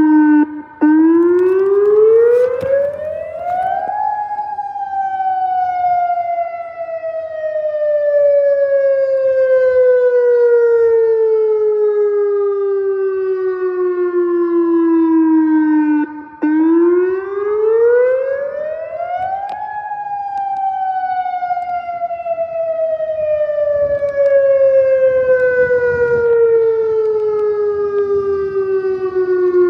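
Outdoor tornado warning siren sounding during a test, an older pole-mounted unit. Its loud wail climbs steeply in pitch over about three seconds, then slides slowly down over about twelve, and the cycle starts again about halfway through.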